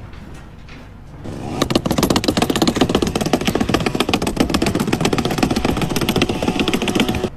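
A loud machine running with a fast rattling beat, starting about a second and a half in and cutting off abruptly near the end.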